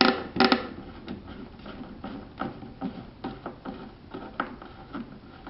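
Light, irregular clicks and knocks of a screw being driven by hand with a Phillips screwdriver into a wooden bluebird nest box, two louder knocks near the start.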